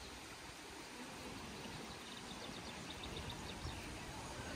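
Faint, steady rush of a shallow woodland stream flowing over stones. About two seconds in comes a quick run of high ticking notes, about five a second, lasting under two seconds.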